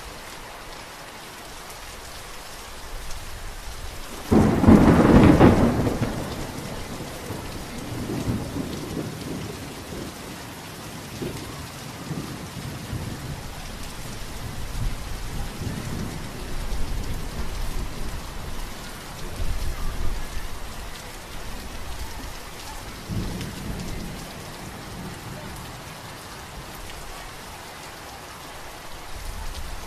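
Steady rain falling throughout, with a sudden loud thunderclap about four seconds in that rolls on as low rumbling thunder, swelling and fading several times before dying away, leaving only the rain.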